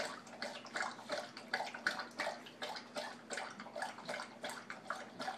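Siberian husky lapping water from a stainless steel bowl, a steady run of wet laps at about three a second.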